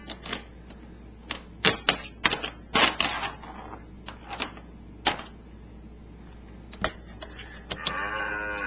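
Irregular sharp clicks and knocks, about a dozen, unevenly spaced with gaps of up to a second and a half. Near the end a pitched, wavering sound begins.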